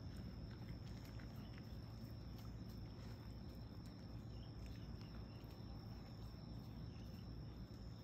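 Faint night ambience: crickets trilling in one steady high note over a low hum, with a few faint soft ticks.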